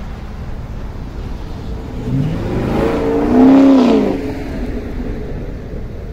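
2020 Camaro SS's 6.2-litre LT1 V8 through its stock dual-mode exhaust, accelerating: the engine note climbs from about two seconds in, is loudest at about three and a half seconds, then drops in pitch and fades away.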